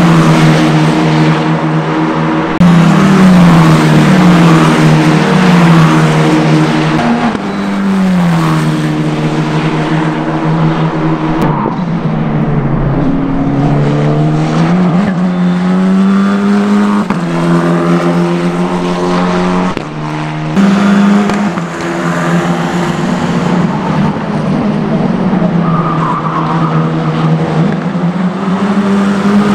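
Tatuus F4 T-021 Formula 4 cars' turbocharged four-cylinder engines running hard: the pitch climbs through a string of quick upshifts, falls through a run of downshifts under braking near the middle, then climbs again as they accelerate away.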